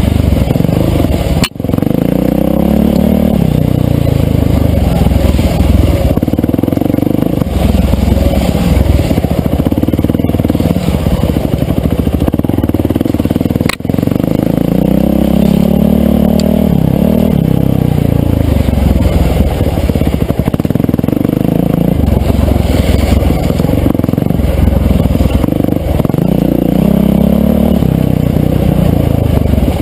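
Yamaha dirt bike engine, loud, revving up and falling back again and again as the rider works the throttle along a tight woods trail. The sound cuts out briefly twice.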